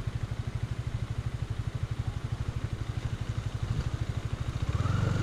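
Motorcycle engine running at low revs, a steady rapid beat of exhaust pulses that grows a little louder near the end.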